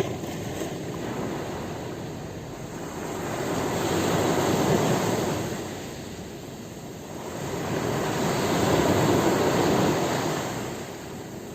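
Ocean surf breaking on a beach: a steady wash of water noise that swells twice, about four seconds apart, each wave building, breaking and fading.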